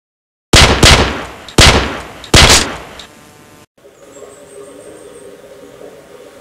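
Four loud, sudden bangs like gunshots, each one fading away, coming within the first two and a half seconds. After them comes a low, steady outdoor background with a faint high tone.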